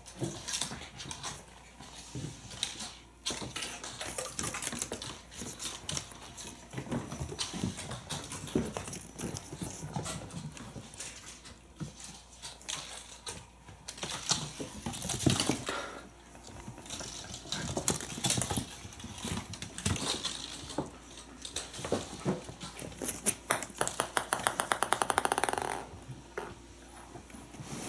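Young kittens playing on a hardwood floor: scuffling and skittering paws, and toys being batted and chewed, in uneven little clicks and rustles. About three-quarters of the way through comes a rapid, evenly pulsing run lasting a second or so.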